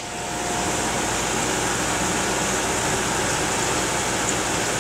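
Air conditioner blowing: a steady, even rush of air.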